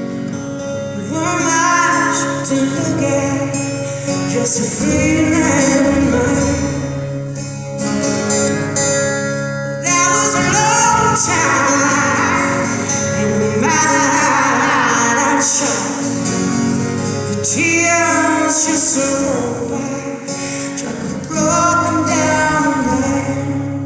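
A woman singing live with acoustic guitar accompaniment, in long sung phrases over steadily strummed chords.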